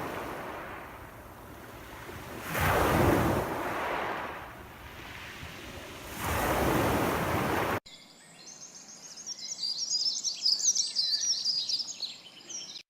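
Surf: three waves swell and wash out, then an abrupt cut about eight seconds in to birds chirping busily.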